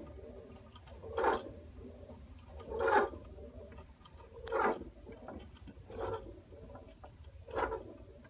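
A hand-turned key in the wooden base of a clockwork automaton being wound, giving a short raspy ratcheting burst with each twist, five twists about a second and a half apart.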